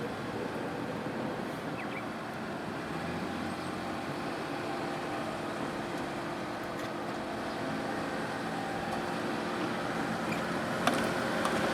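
Road traffic: motor vehicle engine hum with steady low tones, growing gradually louder toward the end.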